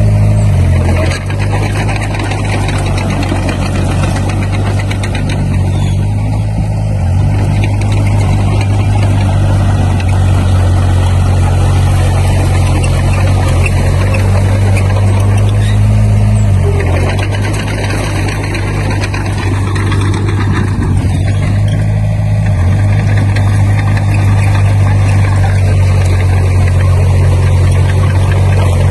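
Diesel engine of a Komatsu D20P bulldozer running steadily, its pitch stepping up and down a few times as the throttle and load change.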